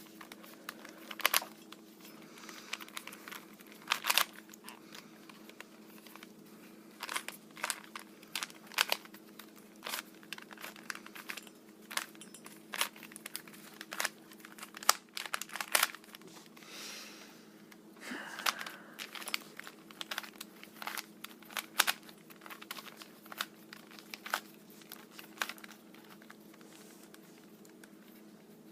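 Plastic 3x3x3 Rubik's Cube being twisted by hand, its layers clicking and clacking in irregular runs of quick turns with short pauses between them.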